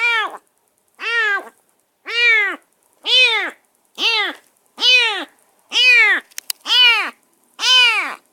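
A newly rescued stray cat meowing over and over, about one loud meow a second, each rising then falling in pitch. Two faint clicks come about two-thirds of the way through.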